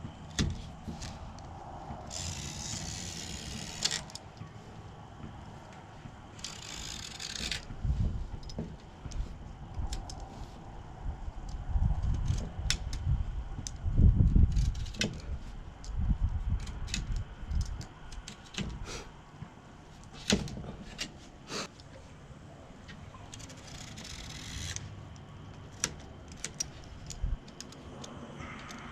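Hands-on work on a screen door: scattered clicks and taps, a few short scraping hisses, and low bumps and thumps, loudest about halfway through.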